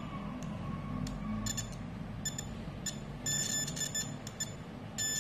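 Digital multimeter's continuity buzzer beeping in short, broken, stuttering bursts with the probes on a laptop motherboard capacitor; a beep here is taken as the sign that the capacitor is shorted and 100% faulty.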